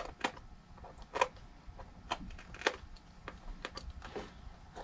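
Welt stitches on a Goodyear-welted shoe being cut open with a small hand tool: irregular sharp clicks and snaps as the thread gives way, the loudest about a second and about two and a half seconds in.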